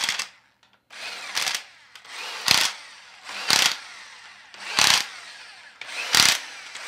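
Corded electric impact wrench driving down the cylinder-head bolts on a Carrier 06E refrigeration compressor, one bolt after another: about six short bursts roughly a second apart, each louder near its end as the bolt seats.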